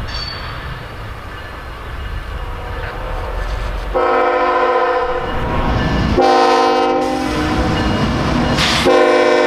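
A low rumble, then from about four seconds in a CSX freight locomotive's air horn sounds a chord of several notes. It gives a long blast and a shorter one, then starts another long blast near the end, the pattern blown for a road crossing.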